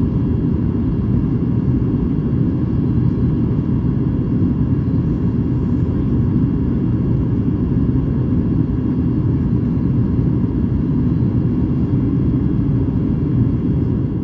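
Boeing 737 MAX 8 cabin noise: a steady low rumble with faint steady tones above it.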